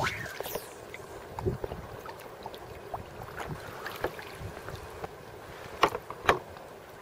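Shallow sea water lapping and sloshing, with light wind on the microphone and scattered small splashes and drips, two sharper splashes close together near the end.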